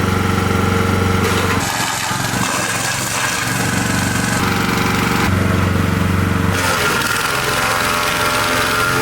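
A 16 hp wood chipper running at full speed: a steady engine hum under a loud, continuous clattering, hissing mechanical noise. The engine note wavers a couple of times along the way.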